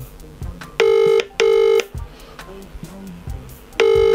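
British telephone ringback tone from a smartphone on loudspeaker, an outgoing call not yet answered. It gives a double ring twice, each a pair of short 'brr-brr' tones, the pairs about three seconds apart.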